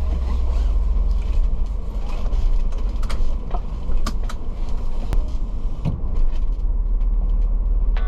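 Road noise inside a Ford Transit camper van's cab while driving: a steady low rumble, with a few sharp clicks and creaks from the cabin about three to five seconds in.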